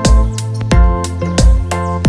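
Background music with a steady beat: a deep kick drum about every two-thirds of a second under held chords.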